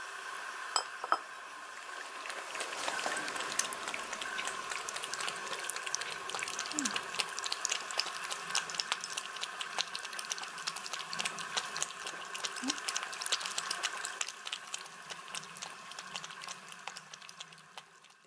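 Two young cats lapping milk from a ceramic bowl: a fast, irregular run of small wet clicking tongue strokes that thins out near the end. Two sharp clicks come about a second in.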